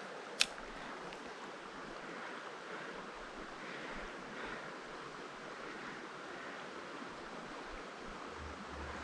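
Creek water running, a steady rushing hiss, with a single sharp click about half a second in.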